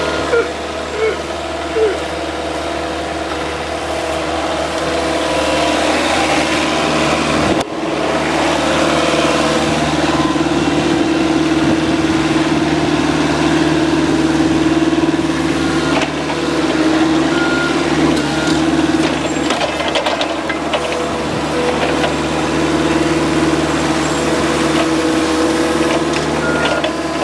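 Forklift engine running steadily under load, with a couple of short beeps near the end.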